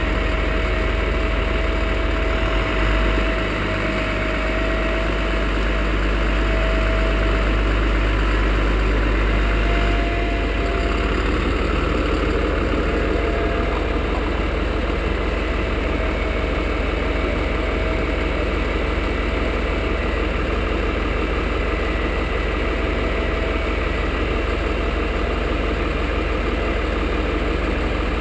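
Truck engine idling steadily. A faint thin whine fades out about ten seconds in, where the engine's low note also changes slightly.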